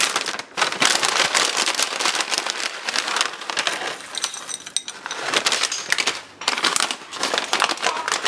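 Plastic food packaging crinkling and rustling in hands: a dense crackle of many small clicks, with a few brief pauses.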